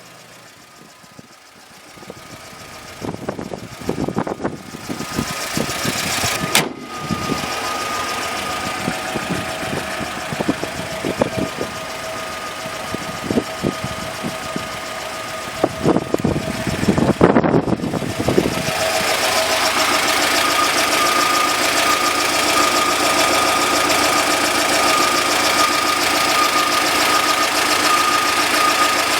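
GAZelle's UMZ-4216 2.9-litre four-cylinder petrol engine running. For the first half it sounds uneven and clattery, with a sharp click about a third of the way in. From about two-thirds through it settles into steady running with a constant high whine.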